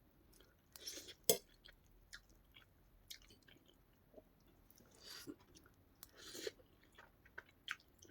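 Close-miked chewing of a mouthful of Buldak noodles and crisp papad: wet mouth clicks with a few louder crunchy bites, the sharpest a little over a second in.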